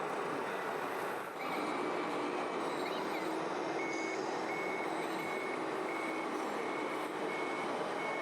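Reversing beeper of an RC model truck, a high beep repeating evenly about one and a half times a second from about four seconds in, over a steady background din.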